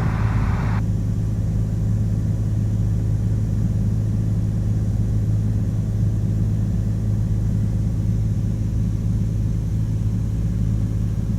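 Cessna 182's piston engine and propeller droning steadily in flight, heard inside the cabin. A hiss cuts off under a second in, and only the even drone remains.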